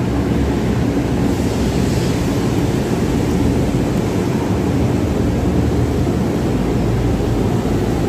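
Steady, loud industrial machinery drone with a low hum.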